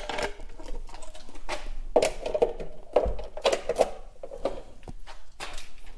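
Irregular clicks and rattles of hands handling wires and alligator clips on a wooden test board, hooking up the wiring of a homemade fire alarm system.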